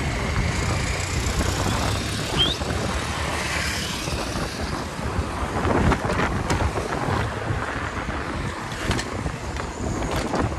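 Wind rushing over the chest-mounted camera's microphone as a bicycle rolls along the street at speed. A short rising high squeak comes about two seconds in, and a few faint clicks later.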